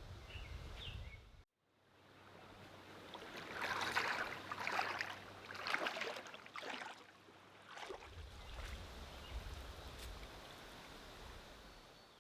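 Moving water splashing and rushing in several surges about a second apart, then settling to a steadier wash.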